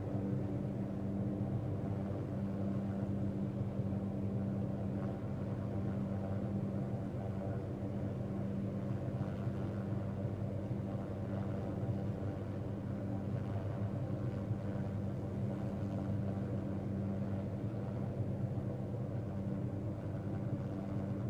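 Steady machine hum that holds one low pitch, even throughout, like an engine running at idle.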